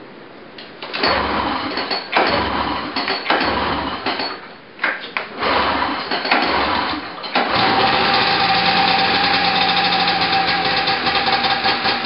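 Snowmobile engine cold-started with the pull cord: several pulls, each a short burst of sputtering, then about seven and a half seconds in it catches and keeps running steadily.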